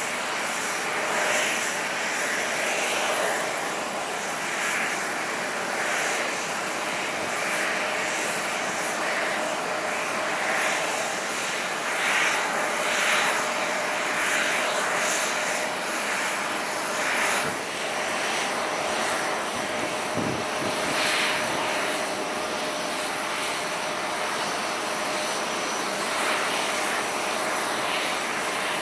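Jet airliner engines running at a busy airport: a continuous rushing roar that swells and eases every second or two.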